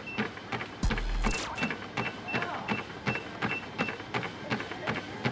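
Background music with a steady quick beat of about two to three pulses a second and short repeated high synth notes, with a low boom about a second in.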